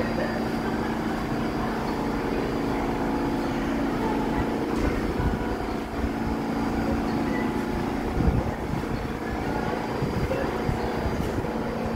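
Steady hum of an idling subway train standing on the next track: its on-board equipment keeps a constant low tone. A few low thumps come about eight seconds in.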